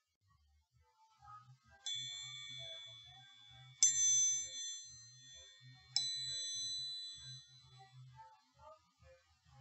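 A high-pitched metal meditation chime struck three times, about two seconds apart, each strike ringing on and fading away; the second strike is the loudest.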